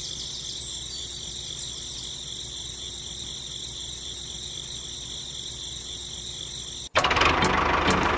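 Steady outdoor insect chirring over a faint low hum. About seven seconds in it cuts off abruptly and a much louder, noisy sound with regular sharp ticks starts.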